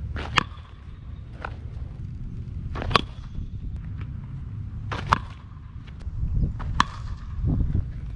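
Metal baseball bat striking pitched balls: four sharp pings roughly two seconds apart, each ringing briefly, with a few duller thuds between the later ones.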